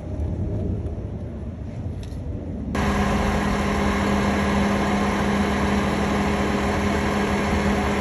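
A heavy engine runs steadily, most likely the crane's engine while it hoists the unit. About three seconds in the sound switches suddenly from a lower rumble to a louder, steady drone with a strong hum running through it.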